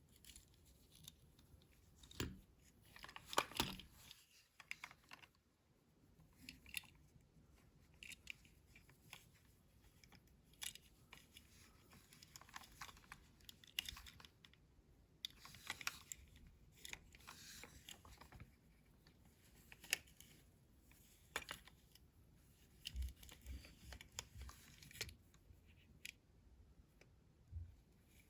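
Faint, scattered clicks, snips and rustles of a toy's cardboard-and-plastic packaging being cut, torn and handled.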